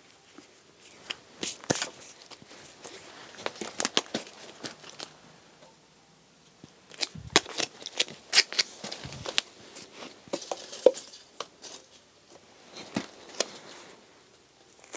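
A thin clear plastic cup lid being fitted and pressed down around a stem onto a plastic cup: irregular sharp plastic clicks and crackles, with a couple of soft thumps about seven and nine seconds in.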